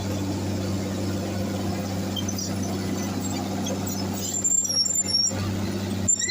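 International TD15 crawler bulldozer's diesel engine running steadily under work, with a low drone. From about four seconds in, short high-pitched squeals and squeaks come from the machine over the engine.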